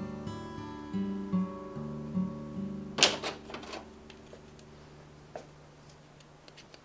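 Background acoustic guitar music, plucked notes ringing and fading away over the last few seconds, with a sharp click about three seconds in.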